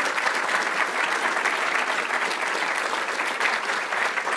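Auditorium audience applauding steadily, a dense patter of many hands clapping.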